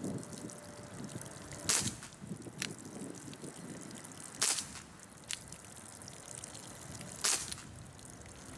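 Umarex Brodax CO2 BB pistol firing three sharp shots about three seconds apart, each of the first two followed by a fainter click, while water trickles and drips from BB holes in a plastic water jug.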